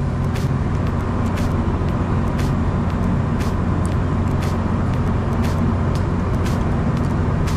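Boat engine running at a steady pitch, with light irregular knocks over the drone.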